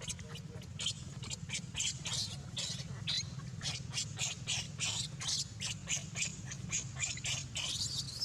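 A rapid series of short, high-pitched animal chirps or squeaks, about three a second, over a steady low hum.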